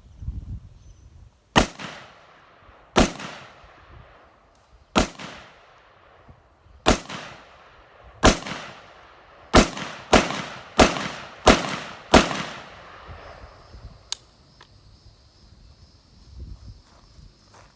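AR-15 rifle firing ten .223 rounds: five deliberate shots about one and a half to two seconds apart, then five quick shots about two-thirds of a second apart.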